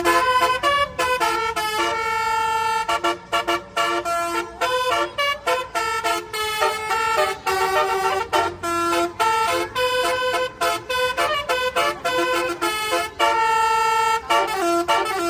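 Indonesian 'telolet' bus horn, a Basuri multi-tone horn, playing a tune of short held notes that change pitch one after another, with brief breaks between phrases.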